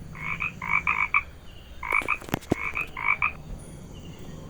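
Frog croaking in short, quick clusters of double croaks that repeat every half second or so, with a few sharp clicks in the middle. The croaking stops near the end.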